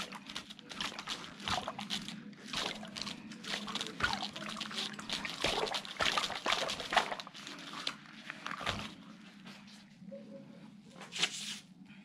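Hands pressing and rubbing a rubber balloon against a bed of soap foam, giving irregular wet squishing noises, with a low steady hum underneath.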